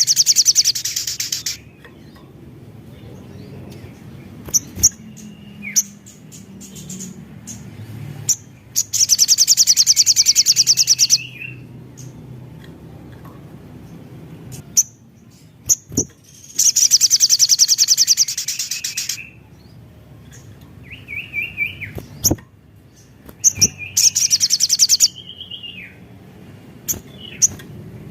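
Sogon songbird singing: four loud, very rapid high-pitched trills of about two seconds each, spaced several seconds apart, with shorter curved chirps and sharp ticks between them.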